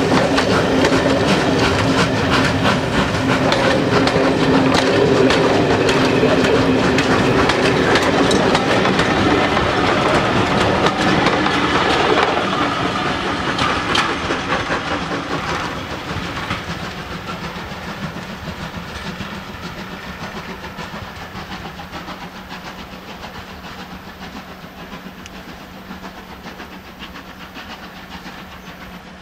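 Passenger coaches of a steam-hauled train rolling close past, their wheels clattering rhythmically over the rail joints. The sound fades steadily from about twelve seconds in as the tail of the train draws away.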